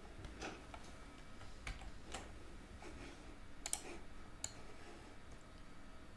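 Faint, irregular clicks from working a computer's mouse and keyboard, several spread over a few seconds, over low room hiss.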